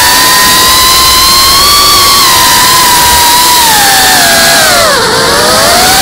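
GEPRC Cinelog35 ducted FPV drone's brushless motors and propellers whining loudly over heavy wind rush. About four and a half seconds in, the whine drops steeply in pitch as the throttle is cut for the dive, then rises again near the end.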